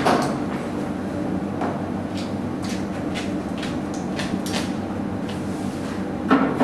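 A motorcycle helmet being pulled on and its chin strap fastened: a bump at the start, then light scattered clicks and rustles, over a steady low hum. A knock near the end.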